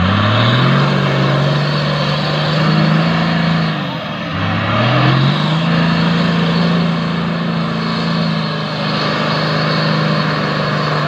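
Toyota Land Cruiser 40-series 4x4's engine revving under load as it churns through mud and shallow water. The revs climb at the start, drop briefly about four seconds in, then climb again and hold, over a steady wash of splashing and tyre noise.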